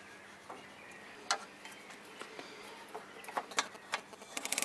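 Scattered light clicks and taps of a pencil, tape measure and steel rule handled against an aluminium security-door profile while the cut line is marked, ending in a short rustle.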